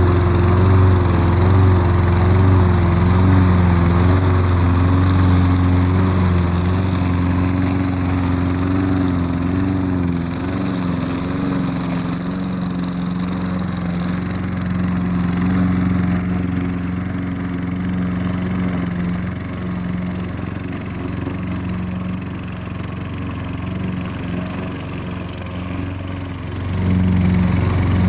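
Gasoline lawn mower engine running steadily while mowing, its pitch wavering a little under load early on, with the sound getting louder again near the end.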